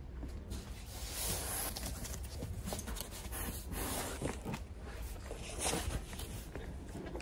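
Footsteps and light handling noise as a phone camera is carried through a room, with a few soft irregular knocks over a steady low room hum.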